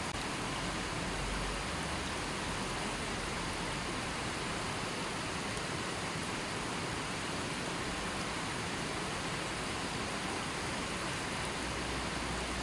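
Fast-flowing stream rushing over rocks and stones: a steady, even rush of water.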